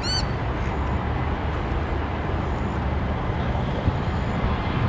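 Steady low rumble of jet airliner engines at an airport, heard from a distance. A bird chirps briefly at the very start.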